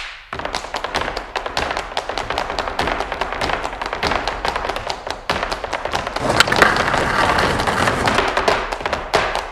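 Soundtrack music built on rapid, percussive strummed strokes, starting abruptly and growing fuller after about six seconds.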